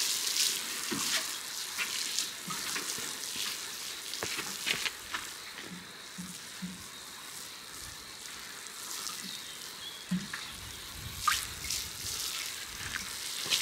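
Water pouring from a plastic watering can's rose onto soil and seedlings, a steady spattering hiss with scattered small ticks.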